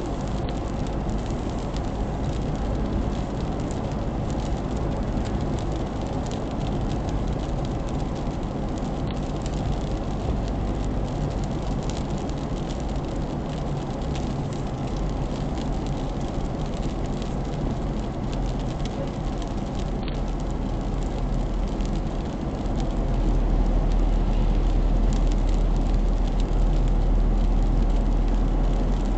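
Steady road and tyre noise with engine hum inside a car cruising on an expressway, heard through a dashcam. Near the end it grows louder, with a deeper rumble for several seconds.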